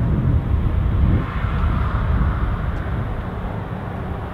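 Twin Garrett TPE331 turboprops of a Fairchild Swearingen SA-226 Merlin III climbing out after takeoff, a low drone that fades as the aircraft flies away.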